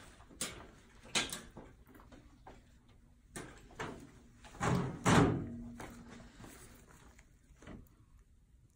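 A series of sharp knocks and thuds, about seven in all, the loudest a heavy thump about five seconds in with a short low ring after it, like a door or cupboard being shut.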